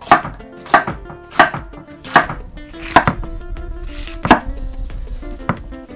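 Knife chopping bell pepper into rings on a cutting board: seven sharp chops at a steady, unhurried pace, with one longer pause before the last.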